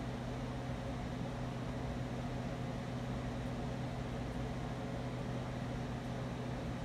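Spirit box scanning through radio frequencies: a steady static hiss with a low hum underneath.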